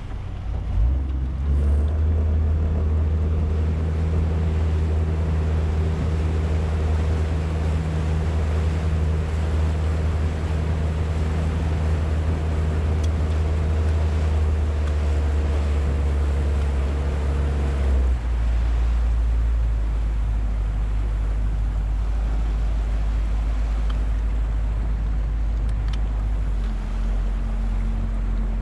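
Small boat's outboard motor running steadily. It picks up about a second in, and about two-thirds of the way through it changes to a deeper hum as its higher tones drop out.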